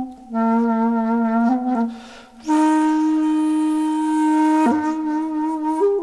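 Background music: a wind instrument playing a slow melody of long held notes, with a short break about two seconds in and one long sustained note after it.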